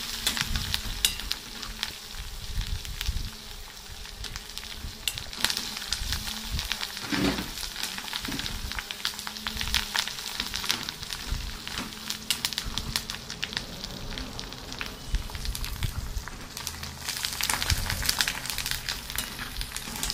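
Katuru murunga (agati) leaves frying in hot oil in an aluminium pan, a steady sizzle full of sharp crackles and pops, while a metal spoon stirs through them. They are being fried slowly on a low flame to turn crisp.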